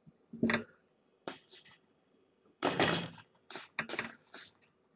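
Kittens hopping, pouncing and landing in play: about five short thuds and scuffles, the longest and loudest in the middle.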